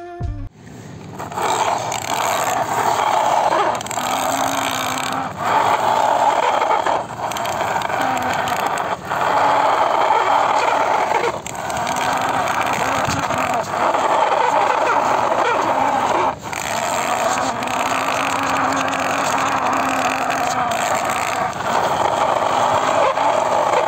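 Plastic toy vehicles pushed by hand through loose sand, a steady gritty scraping with short breaks every second or two.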